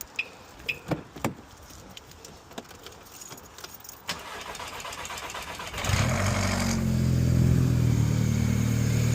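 A few light clicks, then a Mk5 Golf GTI's 2.0 TFSI turbocharged four-cylinder petrol engine is cranked and catches about six seconds in, settling into a steady idle. This is the first start after the high-pressure fuel pump cam follower was replaced.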